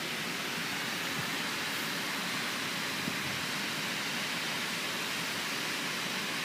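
Steady rushing of river rapids: an even hiss with no breaks.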